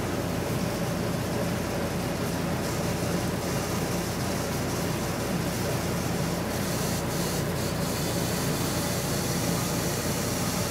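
Steady hum and hiss of room background noise, with faint rustles of diapers and ribbon being handled a couple of times.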